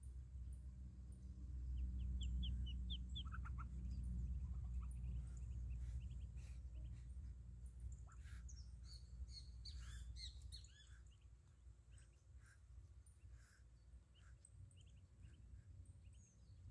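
Ducklings peeping in short high chirps: a quick run of them about two seconds in and a denser cluster around nine to eleven seconds, over a low rumble that is loudest in the first half.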